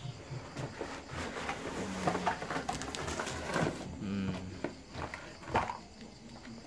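Cardboard box and packaging rustling, scraping and knocking irregularly as a toy RC off-road truck is pulled out of its box.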